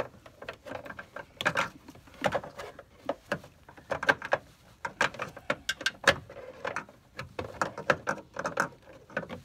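Irregular clicks, taps and scrapes of hard plastic as the headlight's plastic bulb lid is fished out and worked into place behind the headlight housing.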